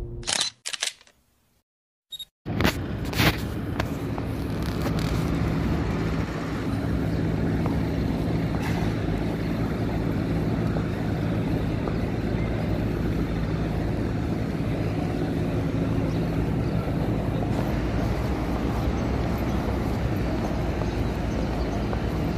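A few short clicks at the end of the logo intro, about a second of dead silence, then steady outdoor city street ambience: an even wash of background noise with a low traffic hum.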